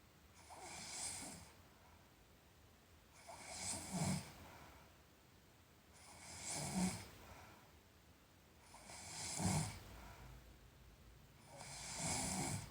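A sleeping person snoring in a slow, even rhythm: five breaths about every two and a half to three seconds, each a breathy rasp that peaks in a low snore.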